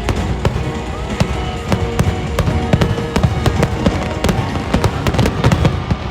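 Fireworks going off in quick succession, with many sharp bangs and crackles one after another over music. The bangs stop near the end.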